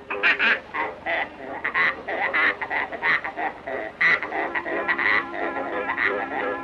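Cartoon sow squealing and grunting in a quick rhythmic run of short squeaky notes, played out as a tune as her teats are pressed like the keys of an instrument.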